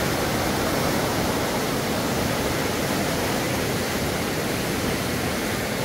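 A river swollen by heavy rains, its water rushing steadily.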